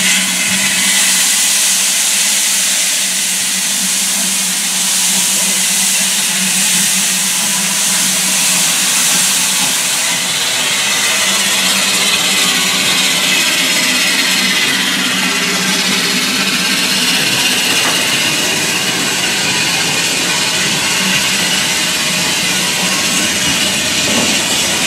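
Small industrial saddle-tank steam locomotive standing with its train, steam hissing loudly and steadily; the hiss is strongest for the first ten seconds, then eases a little.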